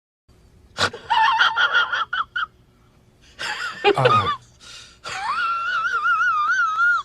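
High, squeaky, wheezing laugh-like vocal sound effect in three phrases. The last starts with a rising glide and is held for about two seconds with a wavering pitch before it cuts off.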